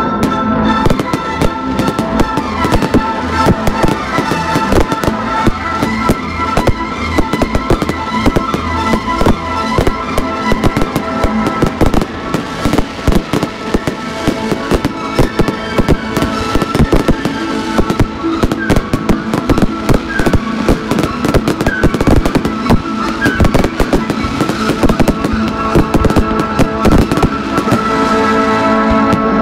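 Fireworks display: a dense, irregular barrage of bangs and crackling bursts, with music playing underneath.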